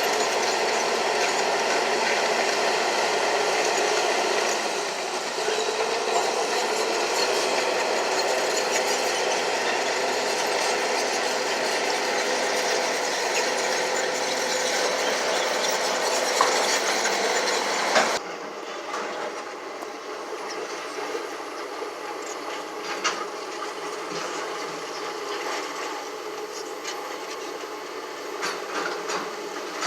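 A heavy earthmoving machine running, with steady mechanical clatter. About eighteen seconds in, the sound cuts off suddenly to a quieter, lighter machine noise.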